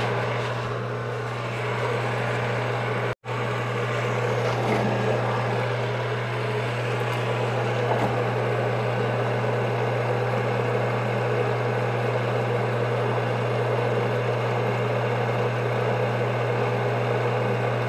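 Sunnen cylinder-honing machine running with a steady, even hum from its motor and honing-oil pump. The sound cuts out for an instant about three seconds in.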